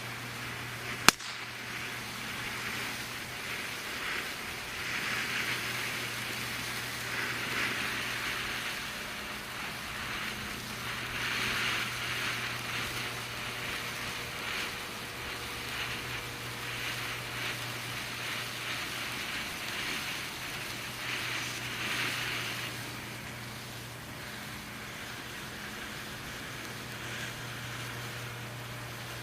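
Red Rhino Stardust quiet fountain firework burning: a steady hiss of spraying sparks that swells and eases in waves and weakens in the last few seconds. One sharp crack about a second in.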